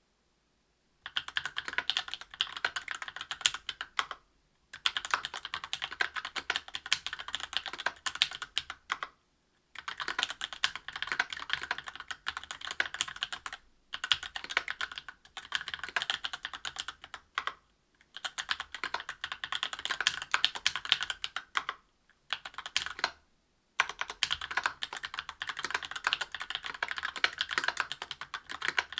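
Fast typing on a mechanical keyboard with lubed Tecsee Oreo 63.5 g linear switches, an aluminium plate and GMK keycaps, in a Linworks Special Dolphin. The keystrokes come in runs of a few seconds, broken by short pauses.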